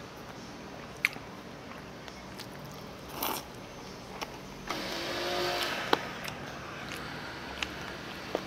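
Eating sounds: chewing, with a few sharp clicks of utensils against a bowl and a louder stretch of noise about five seconds in.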